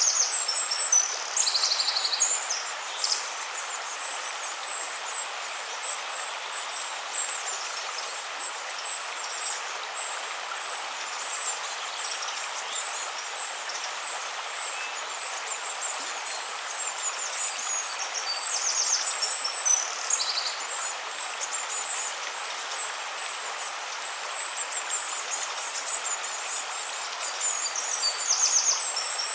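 River water flowing in a steady rush, with small birds chirping and calling in high, quick bursts above it, busiest in the first few seconds and near the end.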